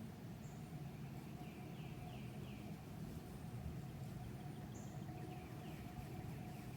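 Faint birdsong: a few series of short, quickly falling notes over a steady low rumble.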